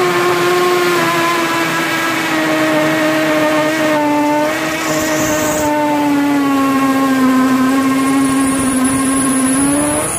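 Parkside PSBSA 20-Li B2 cordless hammer drill boring into brick in hammer mode, second gear, with a 10 mm masonry bit: a steady motor whine over the rattle of the hammer action. Its pitch sags slowly under load and it stops at the very end.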